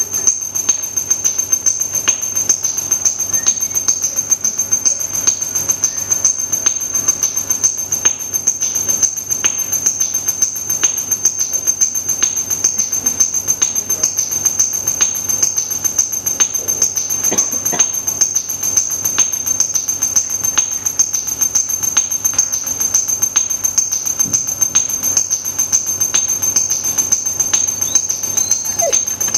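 Live noise music from handmade electronic noise instruments played through a mixer: a dense, fast crackle of clicks over a steady high-pitched whine, with a few short sliding tones about two-thirds of the way in and near the end.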